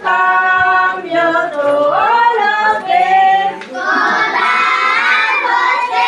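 A group of young children singing together, with women's voices among them, holding and changing notes in a steady melody.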